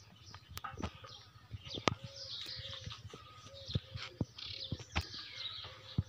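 Goat kids' small hooves clicking sharply and irregularly on hard ground as they walk, with birds chirping in the background.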